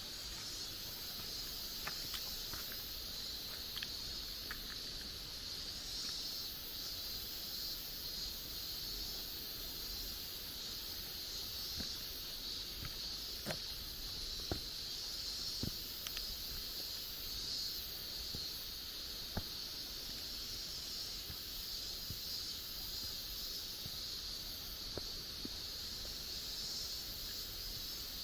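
Steady high-pitched insect chorus of a forest, with scattered light clicks and taps now and then.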